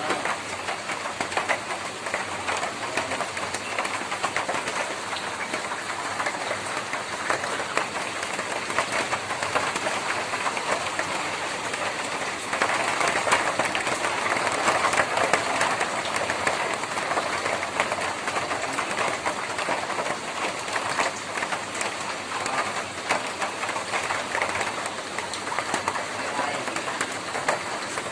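Rain falling on a tin roof: a dense, steady patter of drops on the metal that grows heavier about halfway through, then eases a little.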